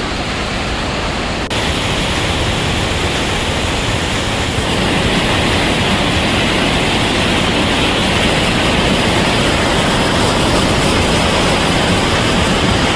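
Athabasca Falls, a loud steady rush of falling water heard close up in the spray. It gets abruptly louder about a second and a half in and swells again a few seconds later.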